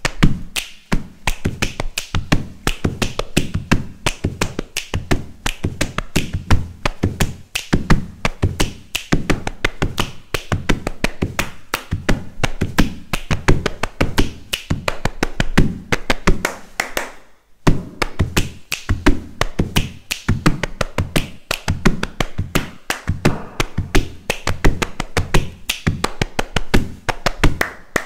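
Ensemble body percussion in a fast samba rhythm: many interlocking hand claps and slaps, with deep thumps mixed in. The beat stops briefly about seventeen seconds in, then starts again.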